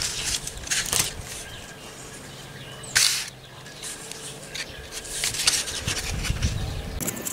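Scissors snipping through a cardboard egg carton, with short sharp snips and a loud rasp about three seconds in, followed by the rustle of a crumpled glue tube being handled.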